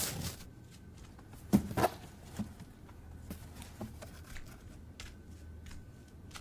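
Quiet room tone with scattered soft clicks and rustling handling noises, and two louder short sounds close together about a second and a half in.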